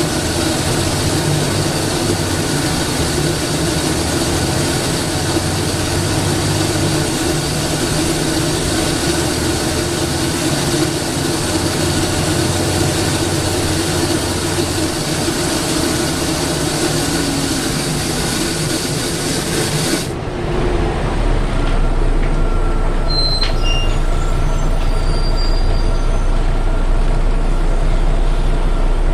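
Volvo B7TL double-decker bus engine heard from inside the bus while it drives. A loud hoover-like suction hiss sits over the engine note and cuts off suddenly about two-thirds of the way through, leaving a deep low rumble.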